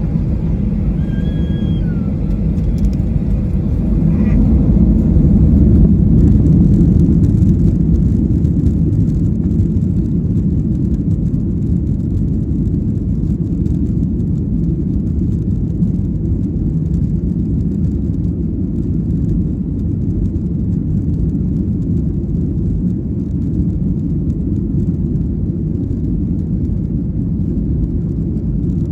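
Cabin noise of a Boeing 737-800 heard from inside: a steady, loud, low rumble of the jet engines and airflow that swells a little a few seconds in.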